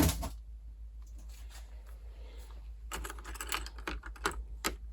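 Small sewing-machine presser feet and their packaging handled by hand: scattered light clicks and taps, with a stretch of crinkling rustle near the end.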